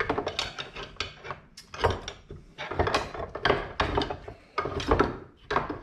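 Wooden lathe workpiece and metal chuck being handled, as when a scroll chuck is worked to release the piece: a string of irregular clunks, clicks and rattles of wood against metal.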